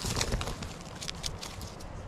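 Footsteps crackling over the forest floor: irregular clicks and rustles underfoot, over a low rumble of handling or wind on the microphone.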